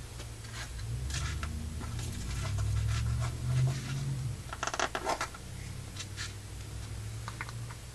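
Light scratching, rubbing and small clicks as the opened firework shell's contents and black powder are handled and poked at, with a denser run of scraping about five seconds in. A low steady hum runs underneath.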